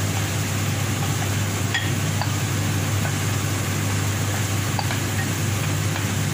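A steady low hum and hiss runs throughout, with a few faint light ticks as chopped onions are scraped from a bowl into a pan with a wooden spoon.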